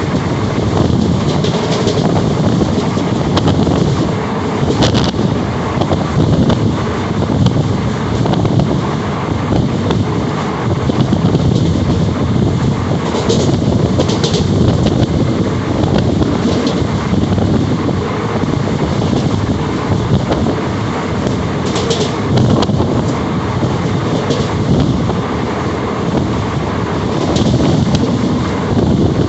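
Passenger train running at speed, heard from inside a carriage: a steady, loud rumble of wheels on the rails, with a few sharp clacks scattered through it.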